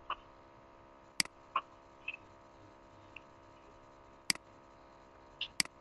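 Computer mouse buttons clicking: three sharp clicks, about a second in, past four seconds and near the end, with a few softer ticks between, over a faint steady hum.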